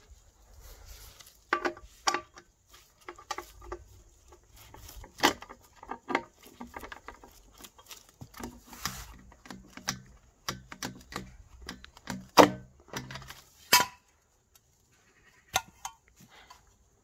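Rustling and snapping of beech hedge leaves and twigs being pushed through, mixed with metallic clinks, in an irregular run of sharp clicks and knocks that is loudest about twelve seconds in.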